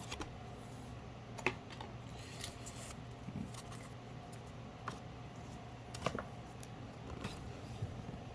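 Pokémon trading cards being handled and flipped through: faint rustling with a few sharp card clicks at uneven intervals over a low steady hum.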